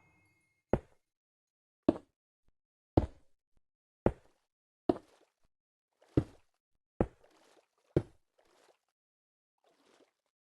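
A series of eight sharp knocks, roughly one a second, each dying away quickly; the last comes about eight seconds in.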